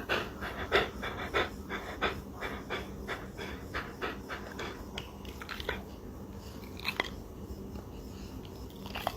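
A dog panting in a quick, even rhythm of about three breaths a second, thinning out to a few scattered breaths after about five seconds.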